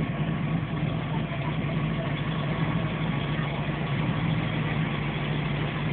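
MerCruiser 7.4 L big-block V8 marine engine idling steadily.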